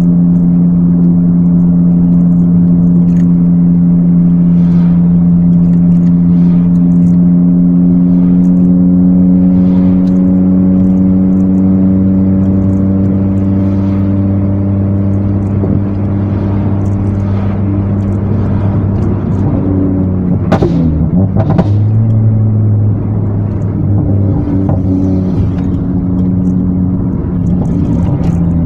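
Ford Focus ST 225 Mk2's turbocharged five-cylinder engine running at a steady cruise, heard from inside the cabin as an even drone that slowly sags in pitch. About two-thirds through the drone briefly breaks up with a couple of sharp knocks, then settles back to steady running.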